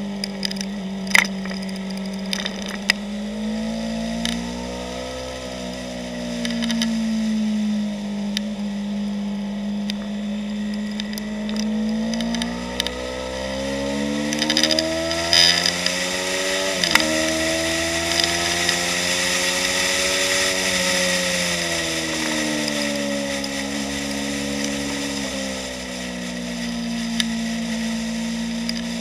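2015 Yamaha YZF-R3's parallel-twin engine running hard at high revs, its pitch climbing and falling with the throttle, with a sudden drop in pitch about 17 seconds in as it shifts up. Wind rushing over the helmet-mounted microphone grows loud along the straight in the middle.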